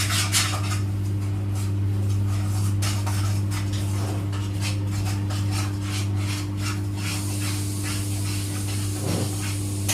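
Siemens iQ700 front-loading washing machine running under test after a drum replacement: a steady hum with irregular metallic clinking and rattling throughout, and a hiss joining in about seven seconds in.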